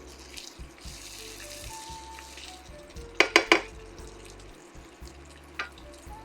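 Chicken in cream sauce sizzling in a pan for the first few seconds. About halfway there are three quick, sharp knocks, the loudest sounds, then a single click near the end. Quiet background music plays throughout.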